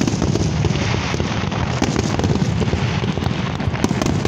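Fireworks display with many shells bursting at once: a dense, continuous crackle of pops and bangs that never lets up.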